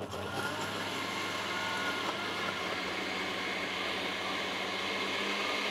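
Domo countertop blender starting up and running steadily, its motor whirring with a constant low hum as it purées kiwi and yogurt, below its top speed.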